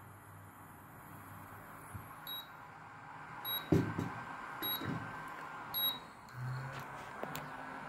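Induction cooker's control-panel beeper giving four short high beeps about a second apart, with light knocks alongside, as its buttons are pressed; the cooker is running again after its microcontroller was replaced to cure the E0 fault.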